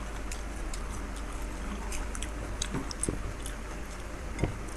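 Eating sounds of fuchka (panipuri): scattered crisp clicks and crackles of the hollow puri shells being handled, bitten and chewed, with a sharper knock about four and a half seconds in, over a low steady hum.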